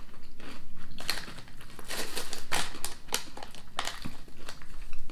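Potato crisps being crunched and chewed, mixed with a foil crisp packet crinkling as it is handled: irregular sharp crackles.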